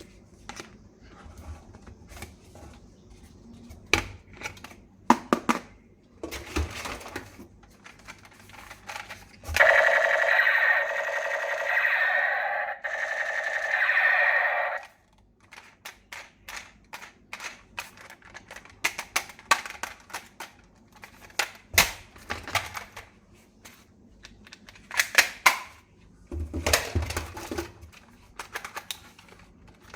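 Plastic toy gun being handled and worked: repeated sharp clicks and clacks, some in quick runs. About ten seconds in comes a roughly five-second electronic tone, loud and pitched, from a small speaker.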